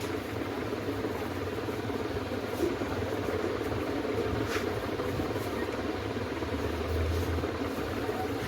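Steady background hum and rumble, with a low hum underneath and a faint short hiss about four and a half seconds in.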